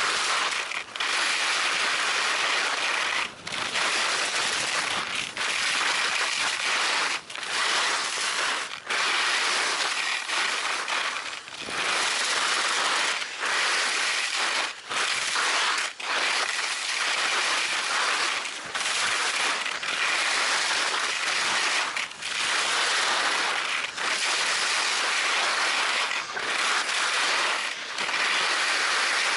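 Skis scraping and carving over groomed piste snow during a downhill run: a loud, steady hiss broken by short drops every one and a half to two seconds, between turns.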